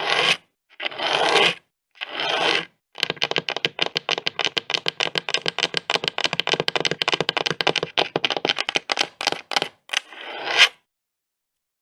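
Long fingernails scratching in a few short strokes, then tapping rapidly, many taps a second, for several seconds, ending with a few single taps and one last scratch.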